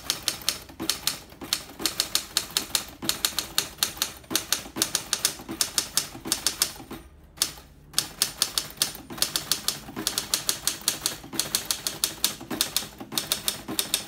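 Hermes Ambassador standard typewriter being typed on fast and steadily, a rapid run of type bar strikes hitting hard against a rock-hard platen, with a brief pause about seven seconds in.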